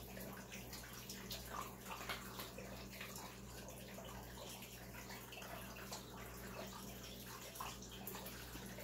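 Faint, steady water trickle with a low electrical hum, typical of a home aquarium's filter running.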